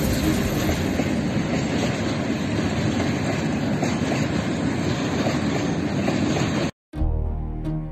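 Freight train of open wagons hauled by a class 311D diesel locomotive rolling past, a steady rumble and rattle of wheels on rails. It cuts off sharply near the end, and music starts.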